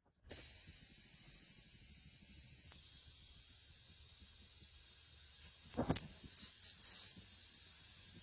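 Steady high-pitched hiss, with a single knock about six seconds in followed by a few short high squeaks.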